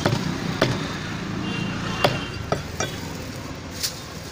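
A heavy cleaver chopping a common carp on a wooden log chopping block: several sharp, irregularly spaced chops, the loudest in the first two seconds. Steady road traffic hum underneath.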